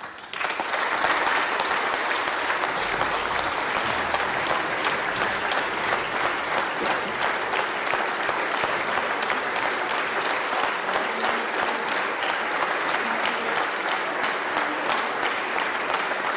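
Applause from a large crowd of many people clapping, starting suddenly and holding steady and sustained.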